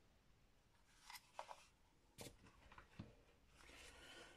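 Faint handling noises of plastic cordless-tool battery packs on a silicone work mat: a few light clicks and knocks, then a brief soft scrape near the end.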